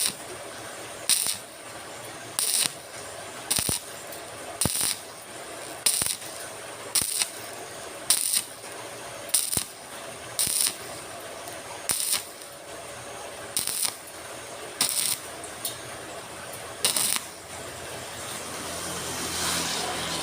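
Sharp metallic clinks, about one a second, each ringing briefly like metal being struck. Near the end a vehicle passing by swells up and fades.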